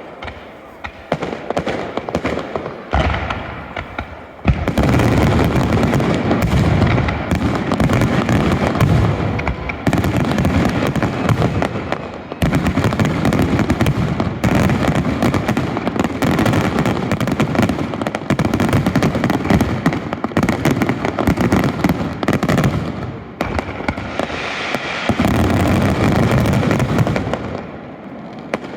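Aerial fireworks going off: a few separate bangs at first, then from about four seconds in a dense, continuous barrage of booms and crackles, which dies away near the end.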